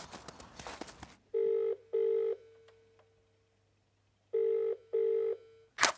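Boots crunching through snow for about the first second. Then a British telephone ringing tone, the double 'burr-burr' heard in the handset while a call waits to be answered, sounds twice. A match strikes sharply just before the end.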